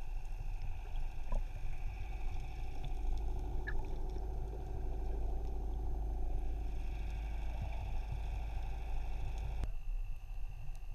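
Steady low rumble of a boat's running machinery with a faint steady whine over it. About ten seconds in, the busier middle of the sound cuts off abruptly, leaving the rumble and the whine.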